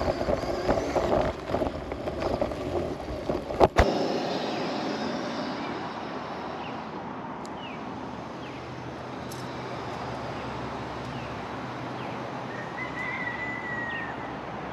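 Uneven rumble and wind noise on a GoPro riding a remote-control truck as it drives along a path, broken by a sharp click about four seconds in. After that there is a steady hiss with a few short bird chirps and one longer whistle near the end.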